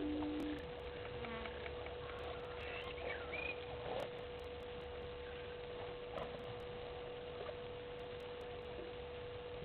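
Quiet bush ambience at a waterhole: a steady hum runs through, with a short low tone right at the start and a few faint short chirps in the first few seconds.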